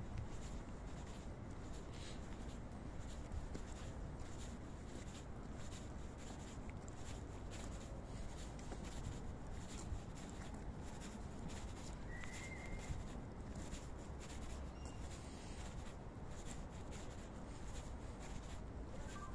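Footsteps and the rustle of clothing from someone walking on pavement, over a steady low background rumble. A brief high squeak comes about twelve seconds in.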